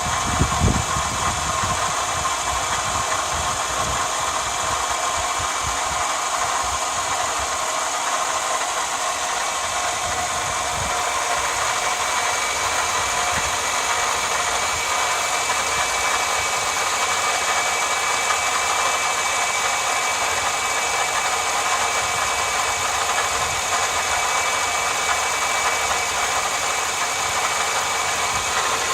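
Toyota Alphard 10-series engine running steadily, with the abnormal noise of a failing V-belt (drive belt) tensioner: a steady whine over the engine sound.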